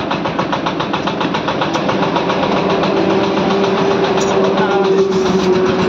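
A motor running steadily with a fast, even throb, settling into a smoother hum about halfway through.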